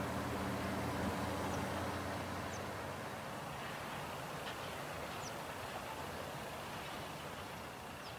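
Distant Metrolink diesel locomotive's engine humming steadily. The hum fades away about three seconds in, leaving outdoor air noise with a few faint bird chirps.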